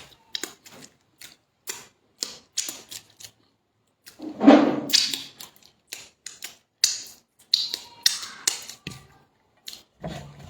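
Close-up eating sounds: irregular clicks and smacks while eating yam with egg sauce, louder about four and a half seconds in.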